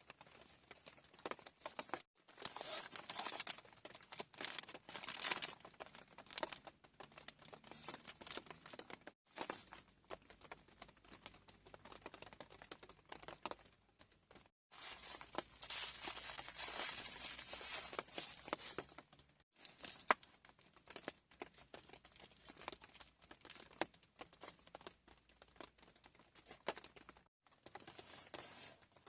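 Faint, irregular crinkling and rustling of tent fabric being handled, with scattered light taps and pattering. Several hard cuts break the sound into short stretches.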